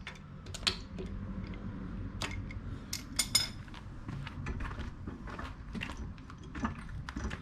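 Metal clicks and clinks of a wheel-bolt wrench and socket being fitted onto and loosening a car's wheel bolts, with a quick run of sharp clinks about three seconds in.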